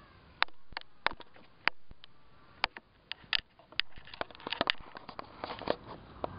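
Handling noise on a camcorder: irregular sharp clicks and knocks of fingers touching and gripping the camera near its microphone, coming thickest about four to six seconds in.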